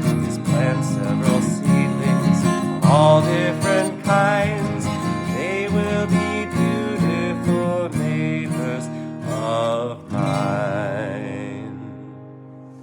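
Acoustic guitar playing the song's closing chords, strummed and picked, then a final chord left to ring and fade away over the last couple of seconds.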